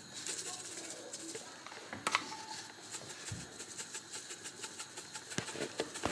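Shaker of dried parsley flakes being shaken: a quick run of light rattling ticks, with a sharper tap about two seconds in.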